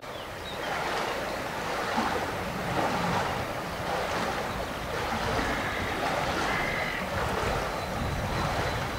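Wind blowing on the microphone: a steady rushing noise with a low buffeting rumble.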